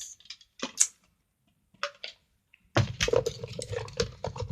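Plastic containers being handled and knocked together: a few separate clicks, then a couple of seconds of clattering and rustling from about three seconds in.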